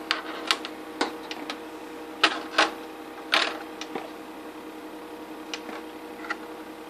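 Metal tweezers clicking and scraping inside a computer's DVD drive slot, fishing for a stuck match: scattered light clicks with a few louder scrapes in the first half, over a steady low hum.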